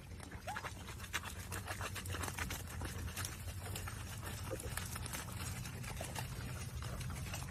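A dog pawing and splashing in a shallow stream of muddy running water as it digs a channel, many small wet scratches and splashes, over a steady low rumble.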